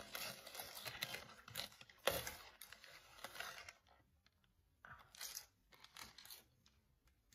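Clear plastic bag crinkling and rustling as a card is slid out of it for about four seconds, then a pause and a few short rustles near the end.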